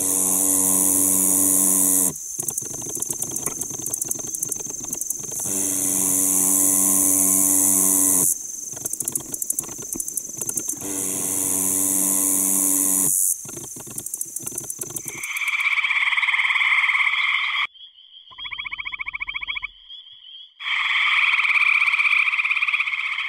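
Katydid song recorded both through the air and as vibration through the plant stem: repeated buzzing phrases two to three seconds long, each with a lower steady hum under the high buzz. About fifteen seconds in, this gives way to male gray treefrogs (Hyla versicolor) calling: loud pulsed trills, with a quieter trill of the chorus between them.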